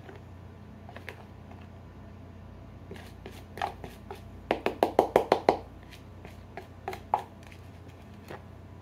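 Thick mayonnaise coleslaw dressing being tipped out of a plastic bowl onto shredded cabbage: scattered soft clicks and plops, with a quick run of about eight loud plops near the middle.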